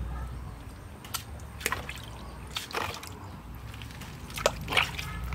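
Hands swishing snake innards through water in a plastic basin, with several separate splashes and drips.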